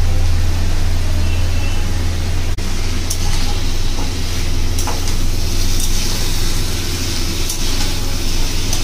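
Ladle stirring curry in a steel pot, then, after a short break in the sound, a steel spatula stirring and scraping mixed vegetables frying in an iron kadai, with a faint sizzle and a few sharp scrapes. A steady low hum lies under it all.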